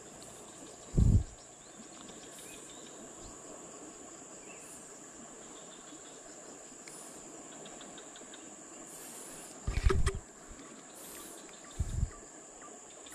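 Steady high-pitched insect drone over a soft outdoor hiss, broken by three short dull thumps: about a second in, near ten seconds and near twelve seconds.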